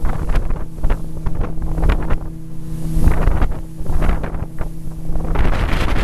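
Motorboat under way at speed: a steady engine hum under heavy, gusting wind buffeting on the microphone and the rush of water past the hull. Near the end the hum drops under a louder, broader rush of wind.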